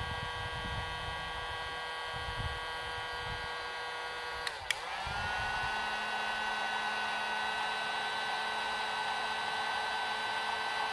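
Electric heat gun heating a solder-seal heat-shrink connector: a steady electric hum, then a click about four and a half seconds in, after which the motor's whine dips, rises and settles, and it runs on steadily with a louder rush of hot air.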